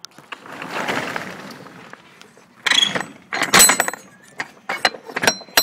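Metal clanking and rattling around a box truck's steel rear step and pull-out loading ramp as they are stepped on and handled. A rush of scraping noise swells and fades over the first two seconds. Then come several sharp clanks with a ringing edge, the loudest about three and a half seconds in, and a few lighter clicks after them.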